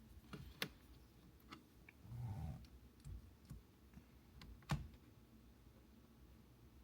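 Scattered light clicks and taps of small plastic and metal steering-wheel parts being handled, with one louder knock about three-quarters of the way through.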